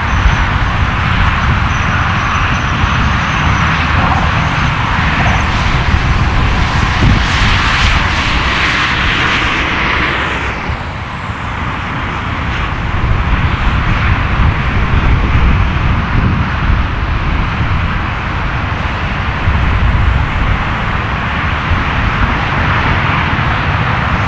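Four-engine Boeing 747 jet noise as the jumbo lands: a loud, continuous rushing rumble that grows harsher about eight seconds in, dips briefly around ten seconds, then swells again during the rollout on the wet runway.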